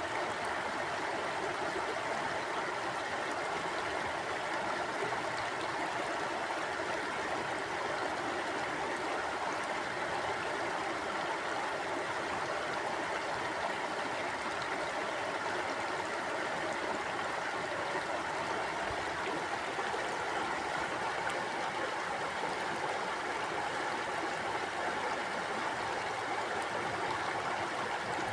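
Mountain river flowing over rocks: a steady, even rush of running water.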